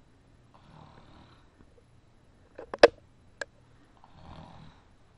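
A sleeping man snoring lightly, two soft snoring breaths a few seconds apart. Between them come a few sharp clicks, the loudest near the middle.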